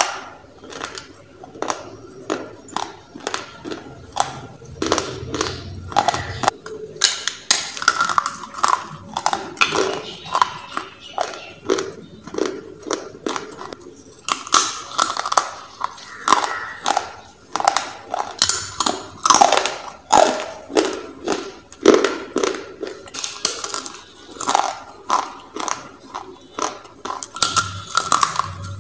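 Close-up crunching and chewing of baked clay rolls: a steady run of sharp, dry crunches in quick succession as pieces are bitten off and chewed.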